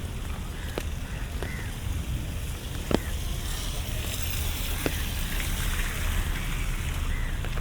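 City street ambience: a steady low rumble of distant traffic, scattered sharp clicks and taps, the loudest about three seconds in, and a hiss that swells through the middle and fades.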